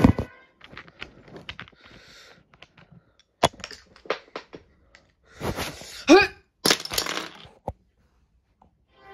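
A scattered series of sharp knocks and cracks, with a short wavering, squeaky rising tone about six seconds in.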